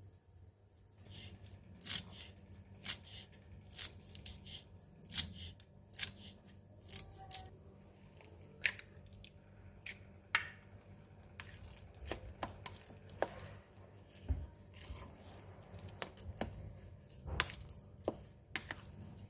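Irregular knocks and taps of kitchen utensils during food preparation, roughly one a second, over a faint steady low hum.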